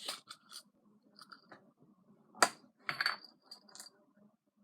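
Small hard objects being handled and knocked together: scattered clicks and clinks, the sharpest about two and a half seconds in, then a few lighter clinks with a brief ring.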